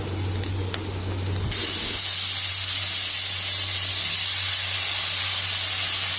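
Diced onions and potatoes sizzling in hot oil in a kadai, with a few light spatula scrapes at first. The sizzle turns louder about a second and a half in, as the diced potatoes go into the pan, and then holds steady.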